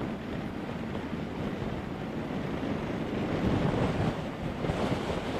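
Wind noise rushing over a camera mounted at the chin of an HJC IS-16 motorcycle helmet, swelling louder about three and a half seconds in.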